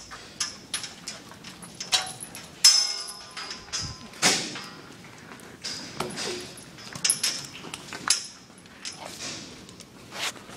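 Steel barn gates and pipe rails clanking and knocking as they are handled, with a short metallic squeal about two and a half seconds in.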